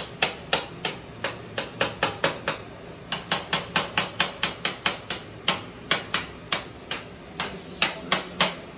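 A metal utensil knocking against the bottom of a metal saucepan while mashing cooked potatoes, with sharp knocks at about three a second.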